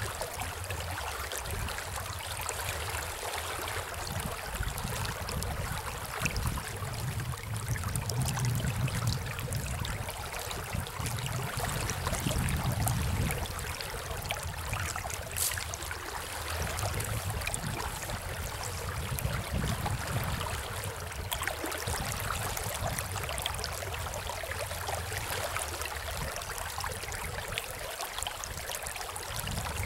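River water flowing steadily over a shallow, rippled run: an even rushing hiss, with a low rumble underneath that swells and fades.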